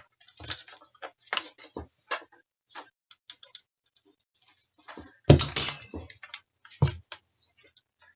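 Small clicks and taps from a ground lead's metal clip being handled and clipped onto a graphics card, with a louder metallic clatter about five seconds in.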